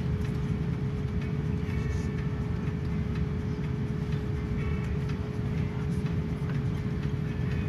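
Airliner cabin noise on the ground: a steady low rumble with a constant hum.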